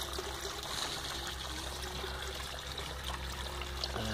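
Water welling up through the inlet fitting of a flood-and-drain hydroponic table and trickling over expanded clay pebbles as the pumped water fills the bed. It runs steadily, with a steady low hum underneath.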